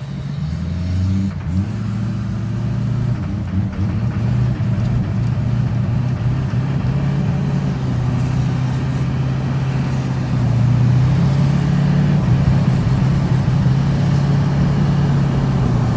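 Chevrolet Duramax diesel pickup engine pulling away from a stop and accelerating, heard from inside the cab. The power cuts in and out as if the throttle is being given and taken away, a fault the owner suspects is in the ECM or the CP3 injection pump.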